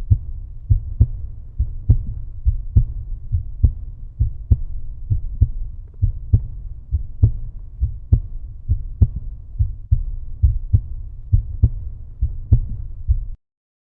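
Outro music with a steady low bass beat, about two thumps a second, that cuts off suddenly near the end.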